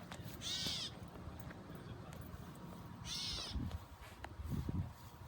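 A bird calling: a short call that rises and falls in pitch, given twice about two and a half seconds apart.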